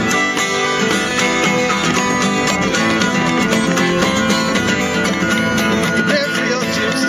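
Live acoustic folk music: a strummed acoustic guitar with a fiddle, a drum beaten with sticks and a frame drum struck with a beater, playing steadily in rhythm.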